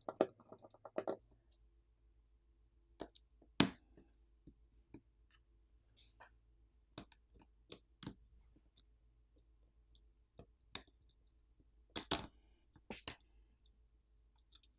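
Faint, sparse clicks and taps of small-parts work inside a disassembled Sony Xperia 1 V smartphone: a screwdriver on the Phillips screw holding the main board, then the main board being pried and lifted from the frame. There is a quick run of clicks at the start, and sharper single clicks about a quarter of the way in and again near the end.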